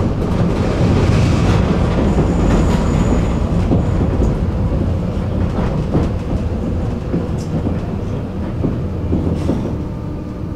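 Tram running along its rails, heard from on board: a steady low rumble of wheels on track with scattered clicks and knocks, growing quieter toward the end.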